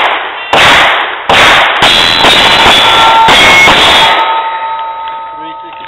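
Glock 19 9mm pistol fired in quick succession, shots roughly half a second to a second apart, with struck steel plates ringing on and fading out afterwards.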